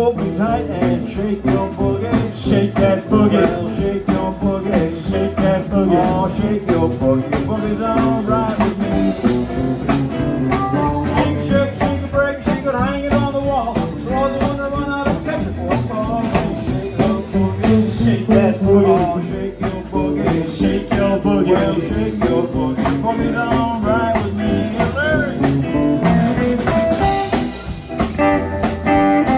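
Live electric blues band playing: harmonica and electric guitar over upright bass and a drum kit.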